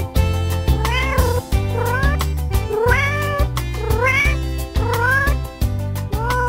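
A domestic cat meowing six times, about once a second, each meow rising in pitch and the last one longer. Background music with a steady beat and heavy bass plays underneath.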